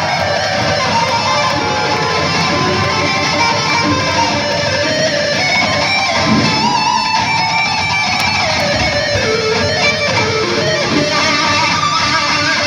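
Live heavy-metal music, loud and steady: a distorted electric guitar plays wavering, bent lead notes over the rest of the band.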